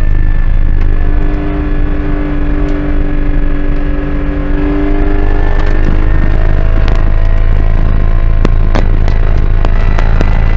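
Porsche GT4 Clubsport's 3.8-litre flat-six running at high revs in sixth gear, heard from inside the cockpit. The engine eases back for a few seconds about a second in, then steadies and climbs again, with sharp clicks and rattles in the second half.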